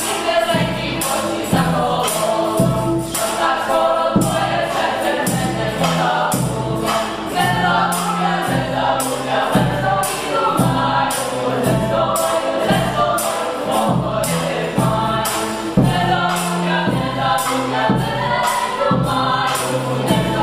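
Background folk music: a choir singing over a steady percussion beat.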